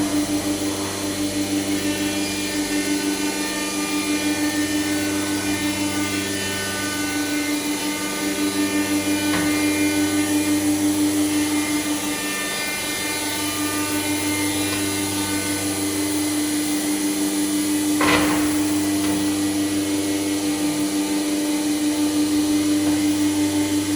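IMA Bima 400V CNC woodworking machining centre running, a steady machine hum over a low drone that swells and fades every few seconds. There is a short knock about nine seconds in and a sharper one near eighteen seconds.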